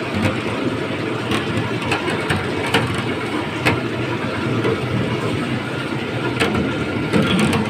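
Apple grading machine running with a steady rumble, its conveyor carrying apples, with scattered sharp knocks as the apples tumble against each other and the machine.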